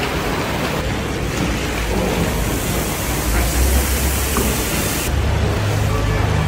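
Steady rushing, hissing noise of a giant cauldron of carrots and chickpeas boiling hard over its fire. The high hiss drops away about five seconds in, leaving a lower hum.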